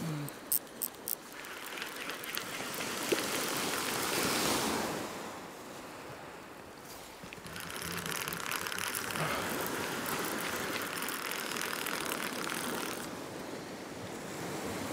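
Waves washing onto a shingle beach and drawing back, swelling and fading in two long surges. A few sharp clicks sound in the first second.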